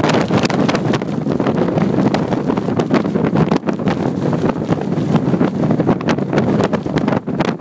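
Blizzard wind buffeting the microphone: a loud, gusting rumble that rises and falls from moment to moment.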